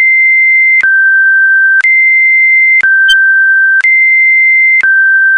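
Electronic two-tone alert signal of a mock Emergency Alert System broadcast: a loud, steady beep alternating high and low, about a second each, three high and three low, with the last low tone cut off near the end.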